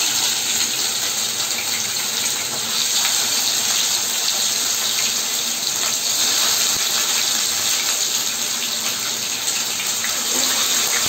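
Pieces of rui (rohu) fish sizzling in hot mustard oil in a kadai over a high flame, a steady hiss, while more pieces are laid into the oil.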